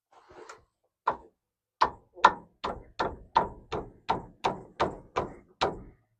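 About a dozen sharp hammer blows, about three a second, working out an output seal on an NP205 transfer case. A soft scrape comes just before the blows begin.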